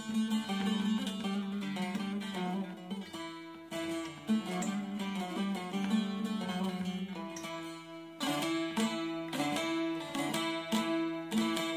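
Long-necked bağlama (Turkish saz) played solo: a plucked melody over a steady droning lower string, turning louder with quick, dense strokes about eight seconds in.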